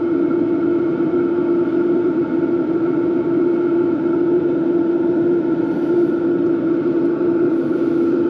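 BougeRV diesel air heater running steadily: its blower fan and burner give a continuous, even hum with one strong unchanging tone.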